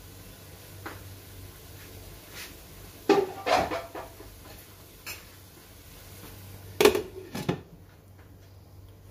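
Pan lid clanking against a cooking pan: a cluster of metallic clanks with short ringing about three seconds in, then two more clanks near seven seconds.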